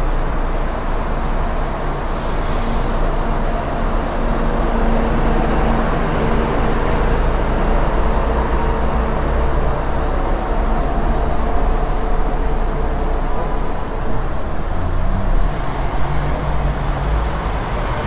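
Road traffic: a steady din of vehicle engines and tyres with a low engine hum throughout, and a few brief faint high squeaks.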